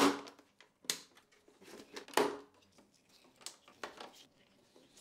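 Plastic clicks and knocks from the housing of a BMW 6WB digital instrument cluster being handled and fitted back together, a handful of separate sharp sounds spread over a few seconds.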